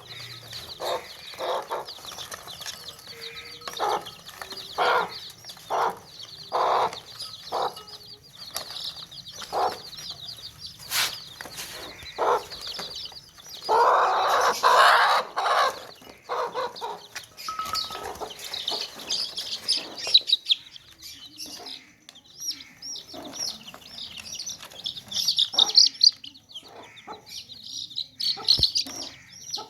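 A crowd of baby chicks peeping continuously in high, thin cheeps, with an adult chicken clucking at short intervals over them and a longer, louder burst of clucking about halfway through.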